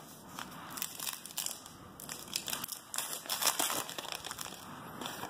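Foil wrapper of a trading-card pack being torn open and crinkled by hand: a run of irregular crackles.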